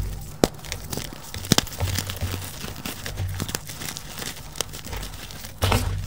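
Soft gym chalk being crushed and crumbled between the fingers: a steady crackly crunching, broken by a few sharp snaps as lumps break.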